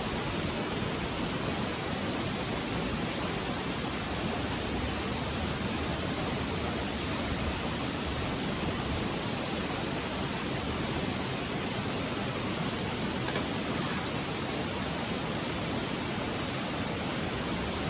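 Petromax HK500 kerosene pressure lantern burning, its burner giving a steady, even hiss.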